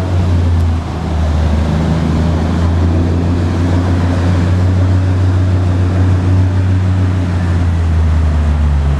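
An engine running steadily close by: a loud, even low hum that drops slightly in pitch about a second in and then holds.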